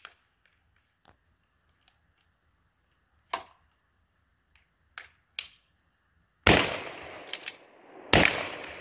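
Two shotgun blasts firing buckshot, about a second and a half apart near the end, each followed by a long echoing tail. A few quiet clicks come before them.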